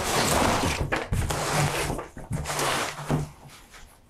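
Cardboard packaging rustling and scraping as a benchtop table saw is lifted and slid out of its box, with low thumps from the saw's base knocking against the cardboard.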